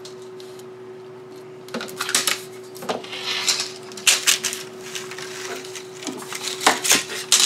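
Rubber spline being pulled out of the channel of a metal window screen frame, with scraping, rustling of the screen mesh and sharp clicks of the frame, starting a little under two seconds in.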